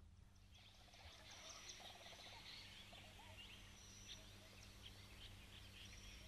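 Near silence: faint outdoor chirping, many short calls, over a low steady hum.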